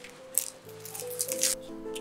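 Background music with sustained instrumental notes, with two short scraping sounds about a third of a second in and around a second and a half in, from a small knife peeling the papery skin off a garlic clove.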